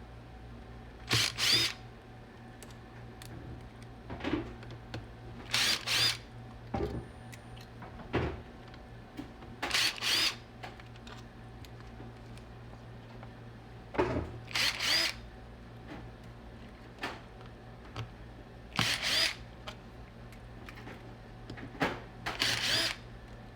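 Cordless impact driver with a T7 Torx bit running in short double bursts, six times about four seconds apart, backing screws out of a 2007 iMac.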